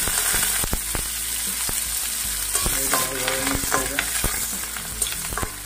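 Dried red chillies and panch phoron frying in hot mustard oil in a metal kadai: a steady sizzle, with scattered clicks of stirring against the pan.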